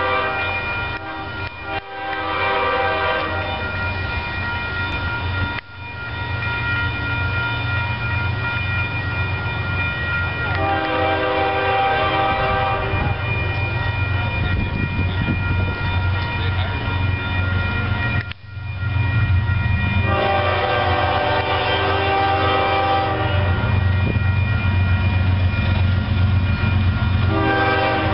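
Diesel freight locomotive air horn sounding its chord in several long blasts, over the steady low rumble of the approaching train's engines.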